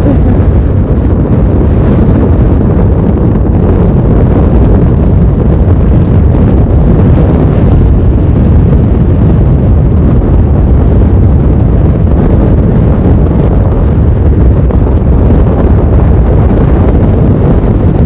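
Strong wind buffeting the microphone of a camera on a moving motorcycle: a loud, steady low rumble of wind noise.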